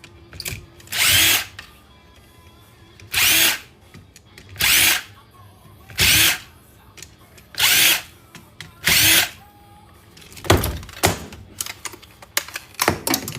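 Power drill run in six short bursts, each spinning up and down, backing fasteners out of scrap aluminum. This is followed near the end by a quick run of knocks and clicks.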